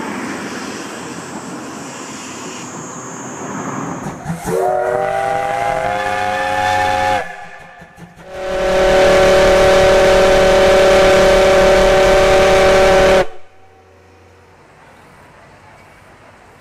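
Steam locomotive venting steam with a steady hiss, then its steam whistle sounds twice. The first blast lasts about three seconds and rises in pitch as it opens. The second, louder blast lasts about five seconds, holds steady and cuts off sharply.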